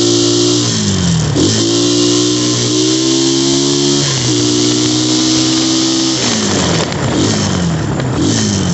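Engine of a 2019 Xmotos 250cc dirt bike running under way, its pitch holding and stepping with throttle and gear changes, then falling off from about six seconds in as the throttle closes. A steady hiss of wind over the microphone runs underneath.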